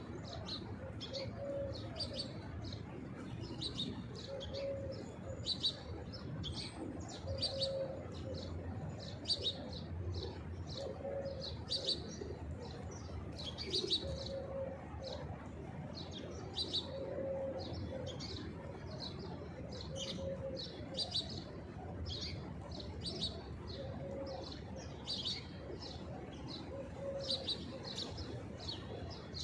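Small birds chirping over and over in short high notes, with a pigeon cooing a short low note every second or two, over a faint steady low hum.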